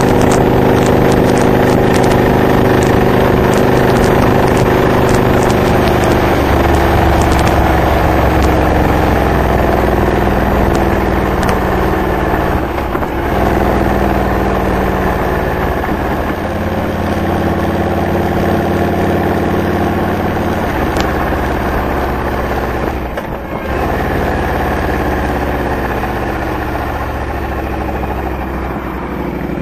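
2007 Honda VTX 1300R V-twin running under way through Hard Krome K2 exhaust pipes fitted with Michael's Resonators. The engine note drops in pitch about six seconds in, dips briefly twice, and falls again near the end.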